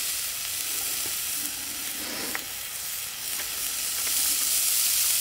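Onions and diced bacon sizzling steadily in oil in a pot over a wood fire, with a few small scattered pops.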